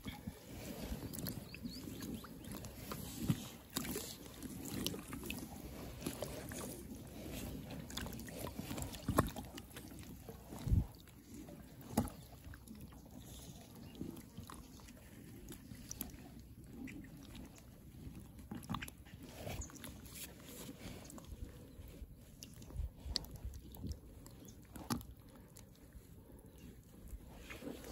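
Water sloshing and splashing around a rubber inner-tube float as it moves through flooded reeds, with scattered knocks and rubbing sounds.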